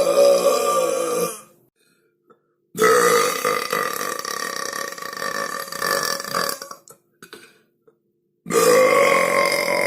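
A person belching loudly with a low, drawn-out tone: one belch trails off about a second and a half in, a long belch of about four seconds follows, and another starts near the end.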